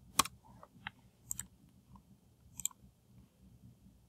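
A handful of separate computer mouse and keyboard clicks, the middle two each a quick double click, with faint room noise between.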